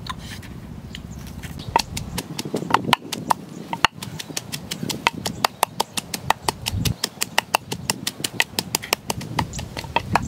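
Wooden pestle pounding in a wooden mortar: rapid, even knocks about five a second, crushing chilies and garlic for a chili sauce. For about the first two seconds there is only the low, steady rush of the wood fire under the roasting fish.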